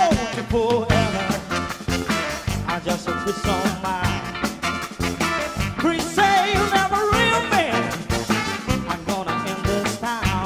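A live band playing an instrumental break with a steady beat and a wavering lead melody line over it.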